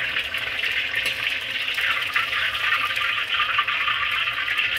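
Batter-coated chicken thighs deep-frying in hot oil in a wok: a steady sizzle dense with fine crackling.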